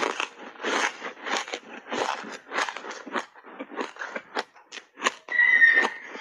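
Ice being crunched between the teeth: matcha-powder-coated block ice chewed in a run of short, sharp crunches, about two to three a second. Near the end a brief high-pitched squeak rings over the crunching.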